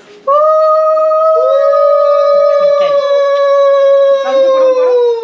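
Conch shells (shankha) blown in a long steady note, with a second, slightly lower conch joining about a second in. The note sags in pitch near the end.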